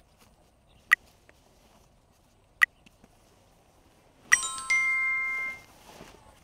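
Sound effects of a like-and-subscribe overlay: two sharp mouse clicks about a second and a half apart, then a bright notification-bell chime of several ringing tones about four seconds in, ringing for a little over a second.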